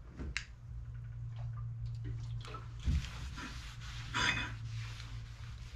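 Scattered light scrapes and clinks over a steady low hum, with louder scraping about three seconds in and again just past four seconds.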